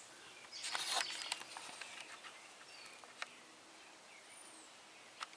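Faint outdoor ambience with a few short, high bird chirps, a brief rustle about a second in, and a few sharp clicks.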